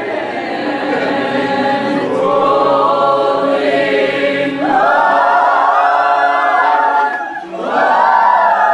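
A choir singing in harmony, holding sustained chords. It breaks off briefly about seven and a half seconds in, then the voices come back in.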